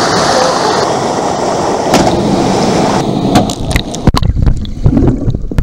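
Water splashing and churning right at the microphone as a jumper lands in a plunge pool. About three seconds in, the camera goes under the surface and the sound turns muffled and bubbly, with knocks.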